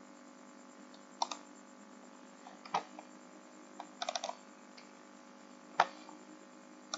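Scattered clicks and keystrokes at a computer keyboard and mouse: a few single clicks, a quick run of about five presses just past the middle, and one louder click near the end, over a faint steady hum.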